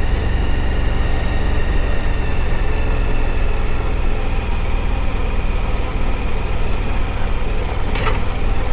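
Suzuki V-Strom adventure motorcycle engine running steadily under way on a rocky gravel road, with constant wind and road noise. A brief crackle near the end.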